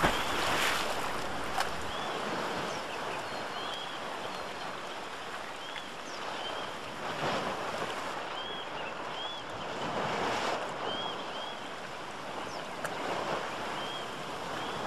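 Rushing water of a rocky woodland creek and small waterfall: a steady hiss that swells a few times. A splash near the start as a boot steps into the stream.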